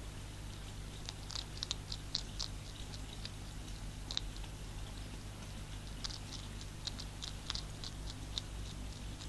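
Hedgehog crunching dry food pellets from a tray: runs of short sharp crunches about a second in and again from about six seconds in, over a steady low hum.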